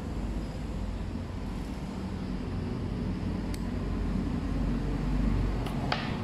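Steady low rumble of background machine or traffic noise, with a few sharp metallic clicks from about halfway on, as a small hand tool works on acrylic nails.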